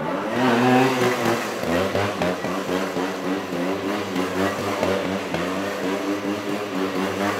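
GasGas trials motorcycle engine revving up briefly near the start, then running at low revs with quick repeated throttle blips as the bike is turned and pivoted at walking pace.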